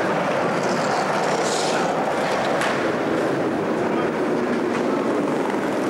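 Skateboard wheels rolling over a concrete floor: a steady rumble with a few faint clicks.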